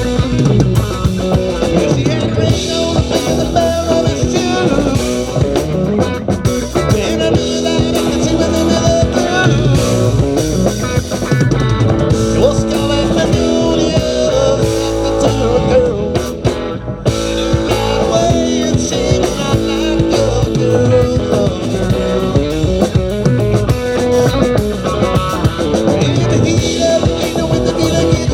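Live band playing: electric guitar over a drum kit and bass with a steady beat.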